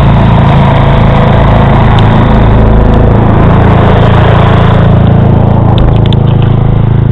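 Vehicle engine running steadily, a low even hum with road noise over it; a few light clicks near the end.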